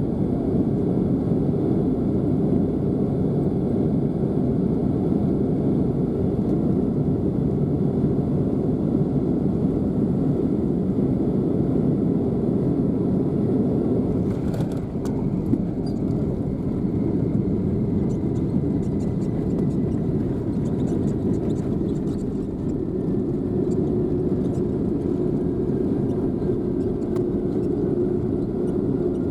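Airliner cabin noise: a steady low rumble of engines and airflow heard from a passenger seat, with a single click about halfway through and a faint steady hum joining near the end.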